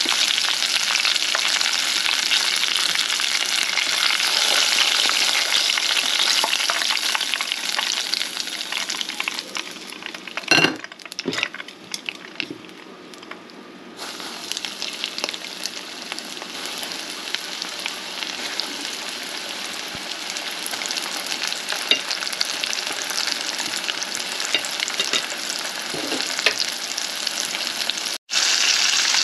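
Hot oil sizzling steadily around battered lobster pieces frying in a pan. About ten seconds in, the sizzle dies down for a few seconds with a couple of knocks. About fourteen seconds in it comes back strong as fresh coated pieces are lowered into the oil.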